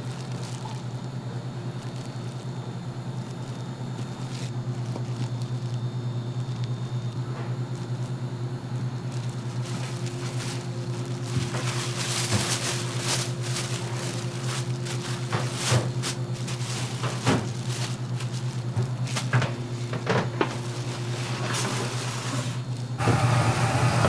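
A plastic sheet rustles and crinkles while it is wrapped around a slab of rice cake, starting about halfway through, with scattered sharp clicks. Under it runs a steady low hum, which gets louder just before the end.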